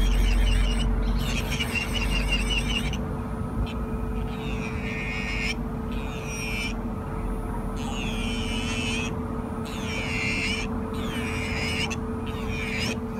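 NATPLUS rechargeable electric nail drill (e-file) running with a steady motor hum and a high whine. The whine's pitch dips and recovers roughly once a second.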